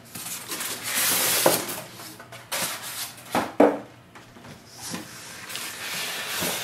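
Foam packing insert being pulled out of a cardboard box: rustling and scraping with a few sharp knocks.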